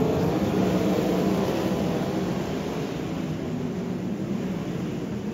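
Sprint car V8 engines running hard at race pace, several cars together. Their note drops in pitch over the first couple of seconds as they go by, then eases a little.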